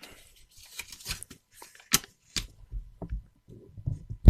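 Paper sticky notes being handled close to the microphone: rustling and crinkling paper with a sharp crackle about two seconds in, then soft low bumps of handling toward the end.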